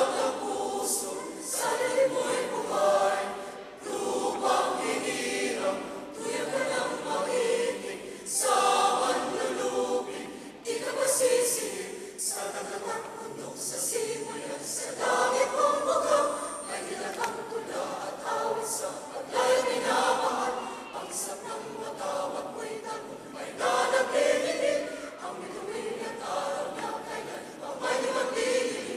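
Mixed choir of men's and women's voices singing in phrases.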